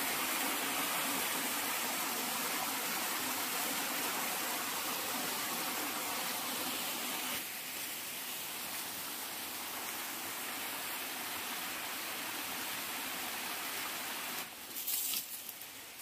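Steady rushing of a small waterfall cascading down a rock channel. It drops a little about halfway through and falls further near the end, where a few light clicks come in.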